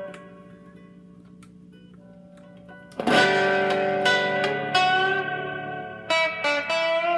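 Rickenbacker 360 electric guitar with flatwound strings, played on its treble pickup alone through an amp. A chord fades out, a few soft notes follow, then a loud chord is struck about three seconds in and rings, and a short run of single lead notes is picked near the end.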